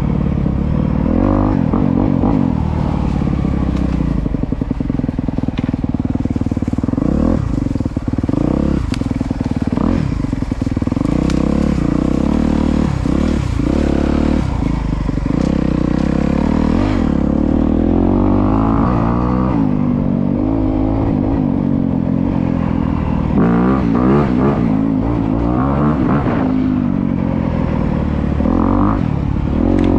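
A 2025 Honda CRF250R's single-cylinder four-stroke engine being ridden hard, the revs repeatedly rising and falling as the throttle is worked and gears change.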